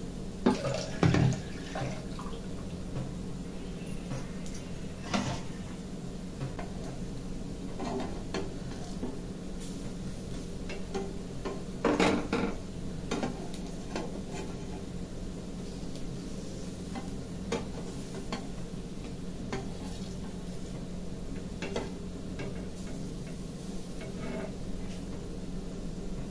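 Steel spatula knocking and scraping in a nonstick frying pan as pakoras pan-fry and are turned, over a steady low hum. The loudest knocks come about a second in and again around twelve seconds.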